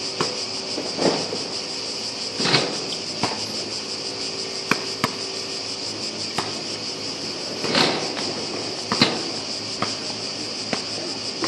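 Cicadas buzzing steadily in a high, unbroken drone, with a basketball bouncing and thudding on the hard court a few times.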